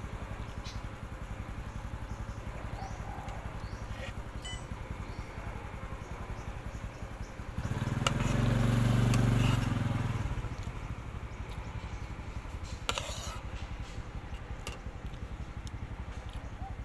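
A motor vehicle passes close by, swelling and then fading over about three seconds near the middle, over a steady low rumble. There are a few light clicks of cutlery on a plate.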